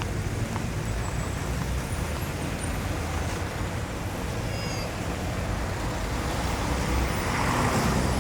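Dense city street traffic: a steady hum of engines and tyres on asphalt. A few faint high squeaks come about halfway through, and the traffic grows louder near the end.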